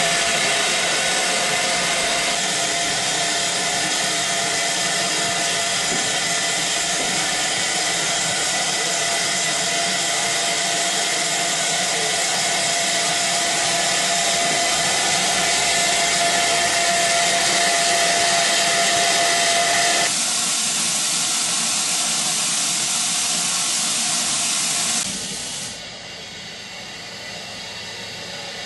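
Steam locomotive hissing steadily as it vents steam, with a steady tone in the hiss that stops about 20 seconds in. The hiss becomes quieter and thinner about 25 seconds in.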